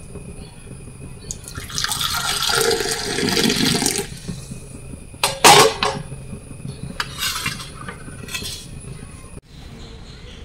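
Tea being poured into a glass tumbler, a steady pour of about two seconds, followed by a single sharp clink a little after five seconds in.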